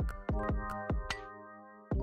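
Electronic background music: a deep drum beat under held chords.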